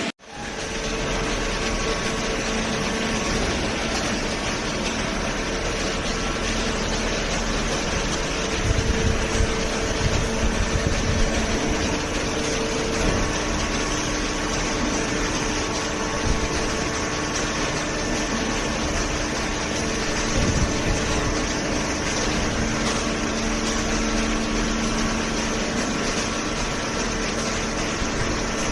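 Hydraulic baler's motor and pump running with a steady mechanical hum. The sound grows rougher and a little louder for a few seconds near the middle, as if the machine is under more load.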